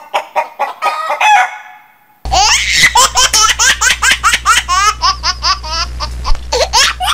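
Rapid chicken clucking that fades out over the first two seconds. Then comes a long, loud, dubbed laugh in quick pulses, with a low hum beneath it.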